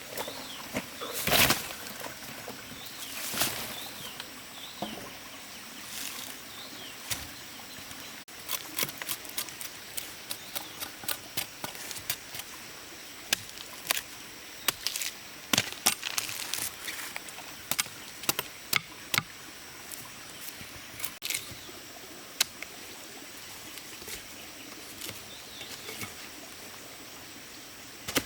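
Irregular sharp knocks and clicks, with two louder rustling thuds in the first few seconds and a dense run of clicks in the middle.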